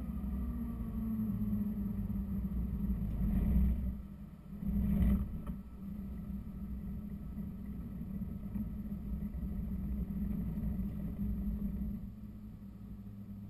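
Bell 206 JetRanger helicopter winding down on the ground, heard inside the cockpit: the turbine and slowly turning main rotor make a steady low drone. There is a brief louder rush about four and five seconds in, and the drone eases slightly near the end.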